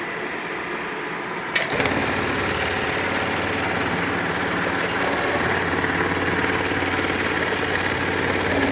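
Juki AMS-210EN computer-controlled pattern sewing machine starts with a click about one and a half seconds in, then stitches a pattern through a piece of hook-and-loop tape, running steadily and evenly.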